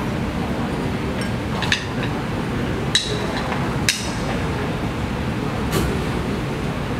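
Steady room noise broken by four sharp clinks, the first less than two seconds in and the last near the end.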